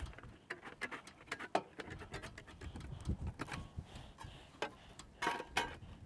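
Tin snips cutting 6-inch aluminum fascia, a run of sharp, irregular clicks as the blades close stroke by stroke, a little louder near the end.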